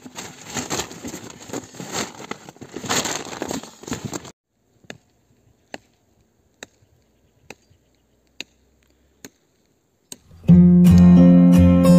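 Rustling and scraping as a rolled foam sleeping mat is pushed across a nylon tent floor, stopping abruptly about four seconds in. After a few seconds of near silence with faint evenly spaced clicks, strummed acoustic guitar music comes in loudly near the end.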